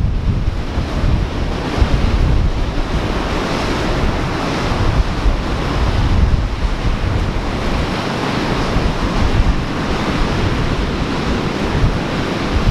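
Ocean surf washing continuously against the shore, with wind buffeting the microphone in gusts.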